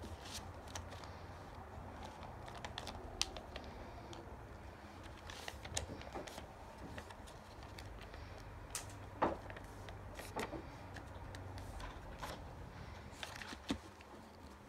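A sheet of paper being folded by hand into a paper airplane on a tabletop: irregular rustling with scattered sharp clicks and taps as fingers press the creases down, the sharpest about nine seconds in.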